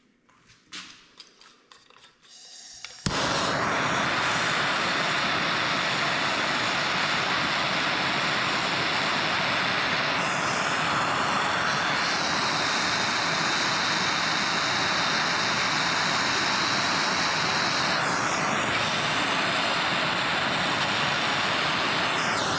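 Hand torch burning with a loud, steady hiss, heating the aluminium clutch where a tight roller pin sits. A few faint clicks come first, the torch starts suddenly about three seconds in, and it shuts off near the end.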